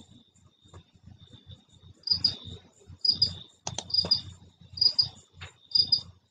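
Crickets chirping: a steady high trill, with a louder double chirp repeating just under once a second from about two seconds in.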